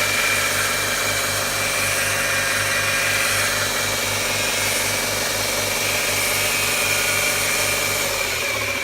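2x27 belt grinder running steadily with nothing being ground: a pulsing motor hum under a high, even whine of the belt. Near the end the hum changes and the grinder begins to run down.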